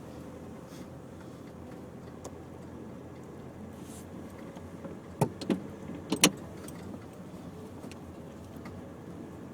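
Steady low rumble of a car driving on a rough track, with four sharp knocks about five to six and a half seconds in, the last the loudest.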